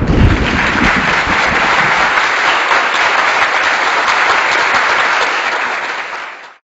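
A crowd applauding, a dense even clatter of clapping, with a low rumble under it in the first second. It fades out about six seconds in.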